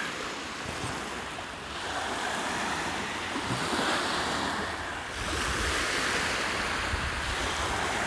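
Sea waves breaking and washing onto the shore, swelling and easing every few seconds, with some wind on the microphone.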